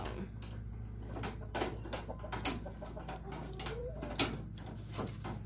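Small, irregular metal clicks and scrapes of a hex key turning a bolt in a steel cart frame while an adjustable wrench holds the nut, over a steady low hum.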